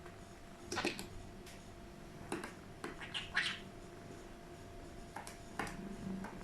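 Budgerigar giving a series of short chirps, about six scattered over a few seconds, the loudest about three seconds in.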